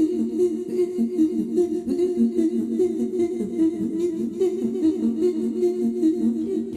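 Music of layered hummed vocals holding a few close, steady notes, pulsing rapidly in level.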